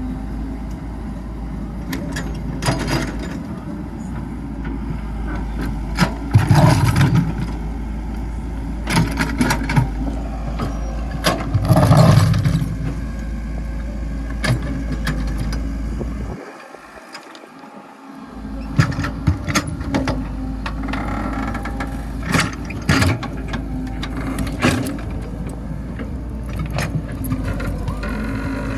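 Excavator running with a steady hum while its bucket works against a large rock, giving repeated knocks and scrapes and two louder bursts of effort. The running sound drops out for about a second and a half past the middle, then resumes.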